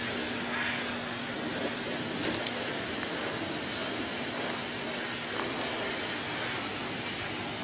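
Steady hiss of outdoor background noise, with a faint steady hum that stops about two seconds in.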